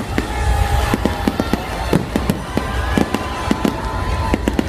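Fireworks going off: a rapid, irregular string of bangs and pops from bursting aerial shells and a sparkling fountain firework, over a steady low rumble.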